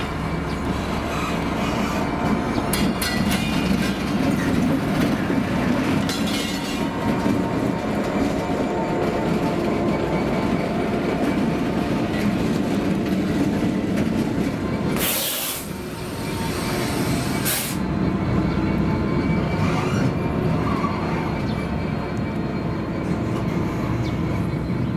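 Class 66 diesel locomotive with its two-stroke V12 engine running as it passes close by, hauling auto ballaster hopper wagons, with wheels rolling on the rails. There are two short hisses about two-thirds of the way through.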